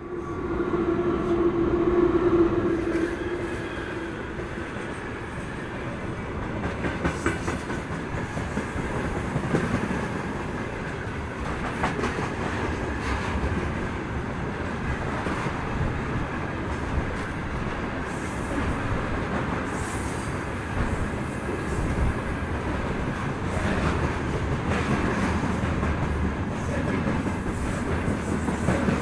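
A VL10U two-section DC electric locomotive passes close by, with a strong steady tone during its first few seconds. Then a long freight train of gondolas, tank cars and hopper cars rolls past with a continuous rumble and clatter of wheels on rails, and a short high squeal about twenty seconds in.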